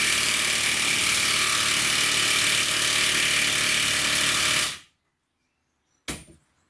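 Makita 40V XGT high-torque impact wrench hammering steadily under heavy load, driving a 5/8-by-8-inch (16 by 200 mm) screw into timber with no pilot hole, and only just managing it. The hammering stops abruptly a little under five seconds in, and a single sharp knock follows about a second later.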